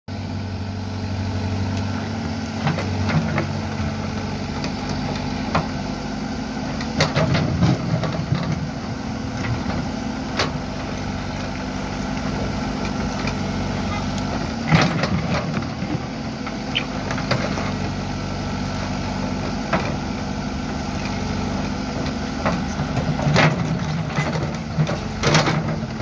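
Backhoe loader's diesel engine running steadily under load as its rear bucket digs into rocky earth, with scattered sharp knocks and scrapes of stone against the bucket, the loudest about 15 seconds in.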